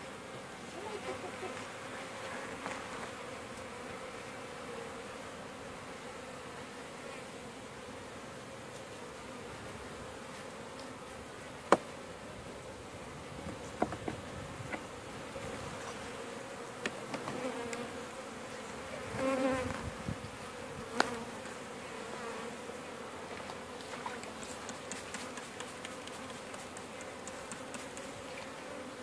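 A honeybee colony buzzing with a steady hum over an opened hive. A few sharp knocks and scrapes of a metal hive tool on the wooden frames stand out, the loudest about twelve seconds in and another near two-thirds of the way through.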